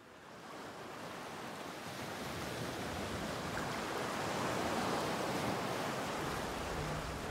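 A surf-like noise that swells up out of silence over the first few seconds and peaks around the middle, with no pitched notes in it: the sound effect of an animated production-company logo sting.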